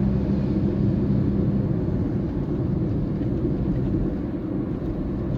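Steady road and engine noise heard inside a moving car's cabin: a low rumble with an even hum underneath.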